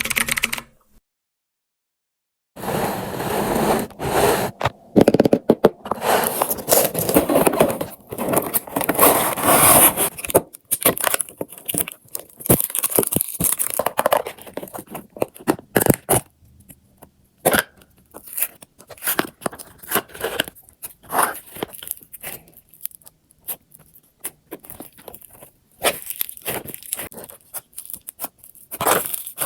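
Slime being squeezed, pressed and stretched by hand, making irregular sticky crackling and crunching with many sharp little clicks. The sound starts about two seconds in after a short silence.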